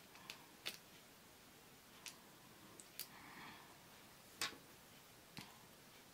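Faint, sparse clicks of small Lego minifigure plastic parts being handled and pressed together, several over a few seconds, the loudest about four and a half seconds in.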